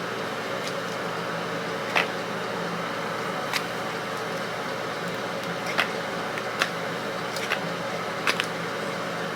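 Flat iron plates clicking shut again and again while straightening a wig, a sharp click every second or two over a steady background hum.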